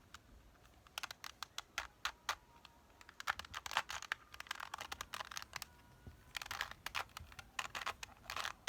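A plastic Rubik's Cube being twisted by hand: flurries of quick clicks and scrapes as its layers turn, in several bursts with short pauses between.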